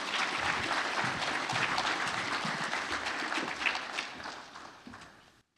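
Audience applauding, dying down near the end and cutting off suddenly.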